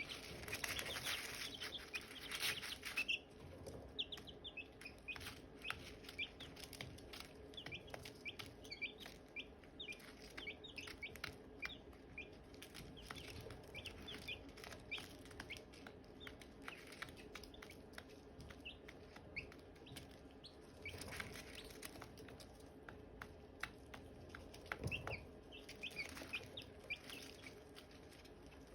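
Silkie chicks peeping: a continual stream of short, high, falling chirps, busiest in the first few seconds and again about three quarters of the way through, over a faint steady low hum.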